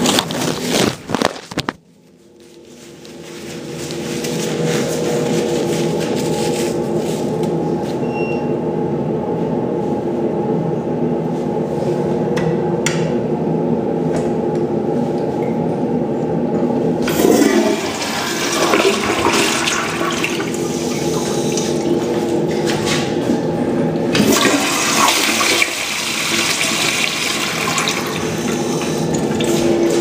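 Toto toilet flushing: water rushing steadily through the bowl and pipes with a steady hum under it. The sound dips sharply about two seconds in, then builds back up over a couple of seconds.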